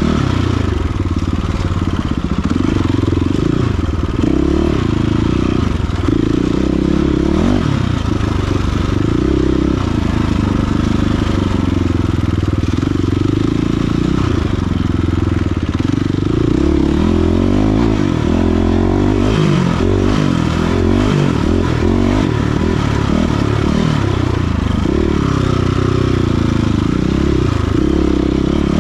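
Off-road dirt bike engine running hard, its revs rising and falling continuously as the throttle is worked and gears change, with some rattle from the machine.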